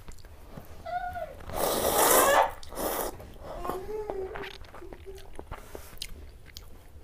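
Person slurping a mouthful of hot thukpa noodle soup, a loud slurp lasting about a second with a shorter one right after, then chewing with a soft closed-mouth "mm" hum.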